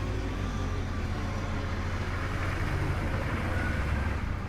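Car engine running steadily as the car drives along, a low hum with road noise.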